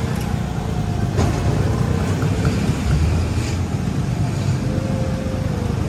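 Small motorcycle engine running at low speed as it rides along a street, a steady low rumble with wind buffeting the microphone. A single sharp knock about a second in.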